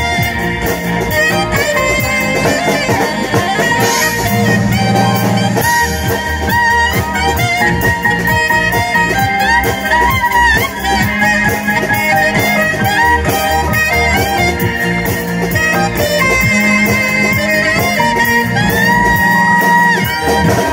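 Alto saxophone playing a gliding melody over backing music with a steady beat and a bass line.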